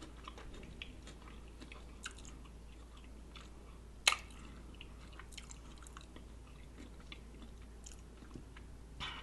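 Close-miked chewing of a lettuce-wrapped Italian sub sandwich, with soft wet mouth clicks and one sharp click about four seconds in.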